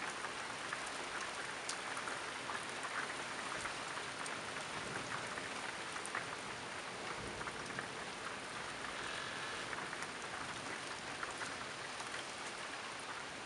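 Steady rain during a thunderstorm, with many small drop ticks.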